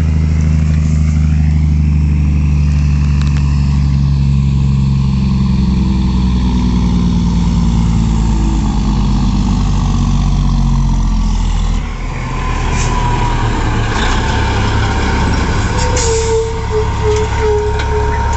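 A 1997 Peterbilt tractor hauling a loaded lowboy trailer, its diesel engine running loud with the pitch slowly falling as the rig slows. About twelve seconds in the engine drops back, and the brakes squeal with short hisses of air as the truck pulls to a stop.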